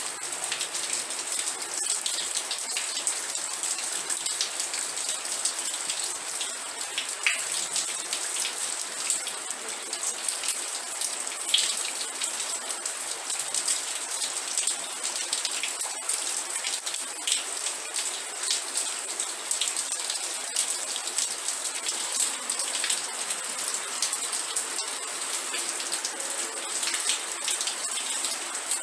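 Steady rainfall, with many individual drops ticking on a surface and a few louder drops now and then.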